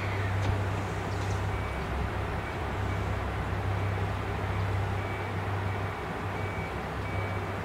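JR Shikoku 2700 series diesel railcar standing at the platform with its engine idling, a steady low hum.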